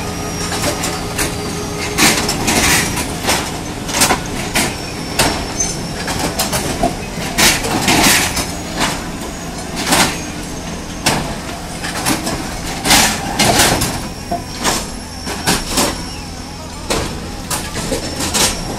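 Harsco track renewal train at work: its engine running steadily under frequent sharp metallic clanks and knocks from the sleeper-handling gear, about one every second or two.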